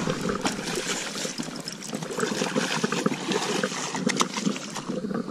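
Splashing and trickling in shallow river water at the edge of a gravel bank as a hooked coho salmon is led in, with many scattered clicks and knocks.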